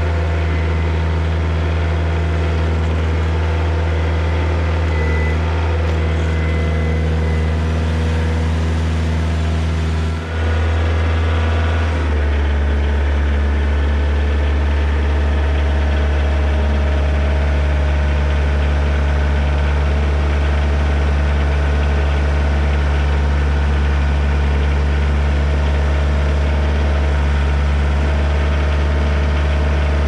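Kioti DK40se compact tractor's diesel engine running steadily while the tractor works its front-loader grapple. About ten seconds in the sound briefly dips, then carries on with its low tone slightly changed.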